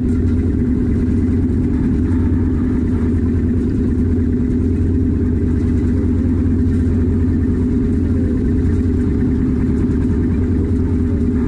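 Engine on the fishing boats running steadily, an unbroken low drone with no change in speed.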